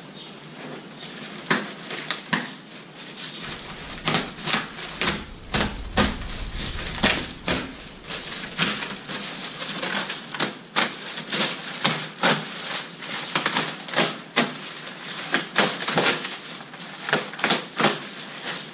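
Clear plastic packing film being pulled and torn off a shrink-wrapped kayak: irregular crinkling and crackling throughout, with a low rumble for a few seconds starting about three and a half seconds in.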